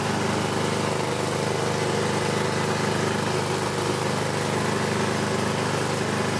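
Small engine-driven meat and chili grinder running steadily under load, its auger grinding peanuts that come out of the die in strands for sambal.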